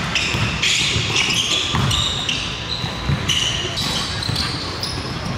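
Basketball game sounds on a hardwood gym floor: the ball bouncing and sneakers squeaking in short high spells, with players' voices.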